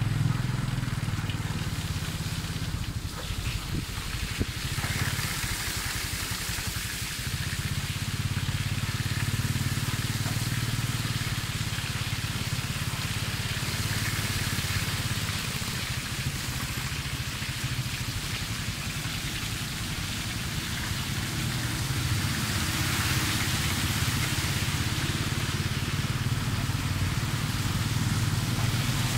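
Small motorbike engine running steadily at low speed, with an even hiss of tyres on the wet, flooded road.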